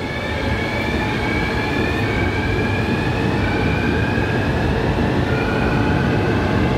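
New Taipei Metro Circular Line steel-wheel medium-capacity train pulling out of the station and gathering speed, over a steady rumble of wheels on rail. Its traction motors whine, the pitch climbing, dropping back and climbing again several times as it accelerates.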